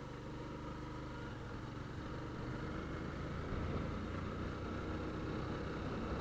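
Motorcycle engine running steadily while the bike is ridden at low speed, growing a little louder partway through.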